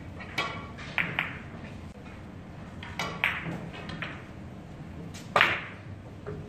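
Carom billiard balls clicking against each other several times as they are set in place, then one sharp, loud crack of cue and ball about five seconds in as a shot is played, sending the object ball away fast.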